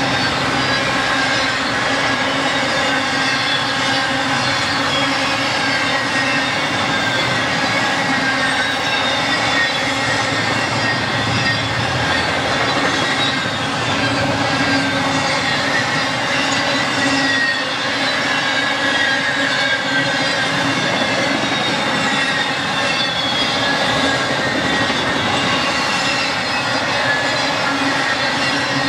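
Intermodal freight cars of a BNSF train rolling past on steel rails: a steady, loud noise of wheels on track, with faint high wheel squeal drifting in pitch throughout.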